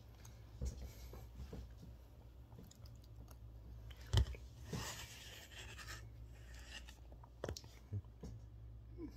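Quiet eating sounds: a metal fork scraping and clicking as food is picked up, and chewing, over a low steady hum. There is one sharp knock about four seconds in.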